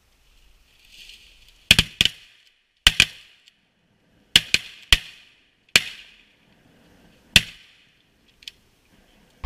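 Duck hunters' shotguns firing a ragged volley of about eight sharp shots over some six seconds, in pairs and singles, each shot with a short echo, then a faint last shot near the end.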